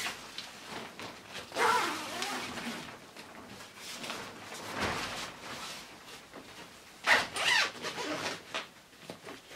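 Zip being drawn around the fabric cover of a pop-up playhouse, with rustling of the thin nylon fabric as it is pulled taut over the pole frame; the loudest stretch comes about seven seconds in.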